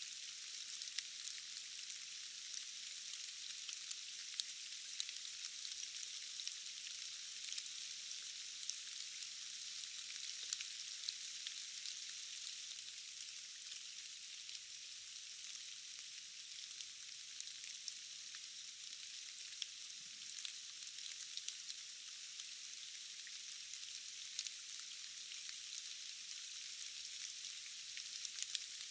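Steady rain falling in a forest: an even, high hiss with many sharp drop ticks scattered through it and nothing deep underneath.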